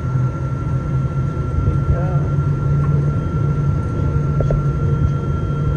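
Cabin noise of a Boeing 777-200ER rolling slowly on the ground, heard from a window seat over the wing: a steady low rumble from its GE90 engines with a thin, steady high tone over it.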